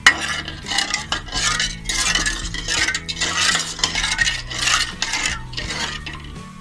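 Metal spoon stirring a thin spice-and-water mix in an aluminium karai, scraping against the pan in repeated strokes about two a second, with a sharp knock of spoon on pan at the start.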